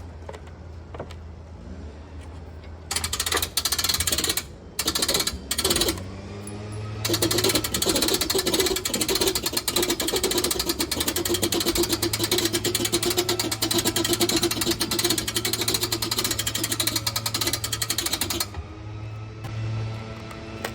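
Handheld power tool with a rapid reciprocating buzz, such as a saw cutting into the camper's wood. It runs in two short bursts, then steadily for about eleven seconds before stopping, over a steady low hum.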